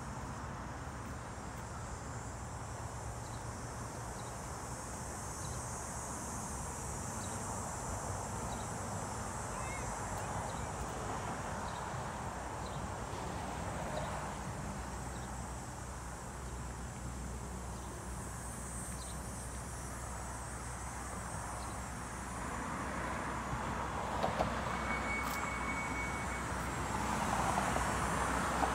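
Steady road-traffic noise with a high, even insect buzz above it; a vehicle passes, growing louder near the end.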